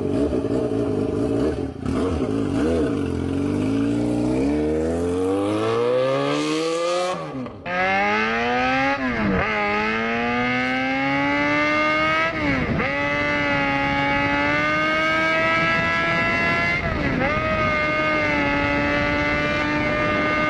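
Motorcycle engine accelerating, its pitch climbing steadily for about seven seconds. After a brief break it accelerates again through the gears: the pitch drops back sharply at each upshift, three times, and then holds high and steady.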